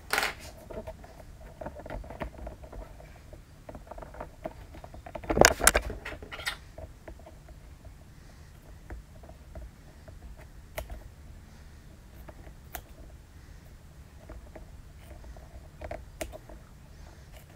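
Quiet handling sounds from a knife nicking notches into vinyl wrapped over a door-panel board: scattered small clicks and scratches, with one louder knock about five and a half seconds in.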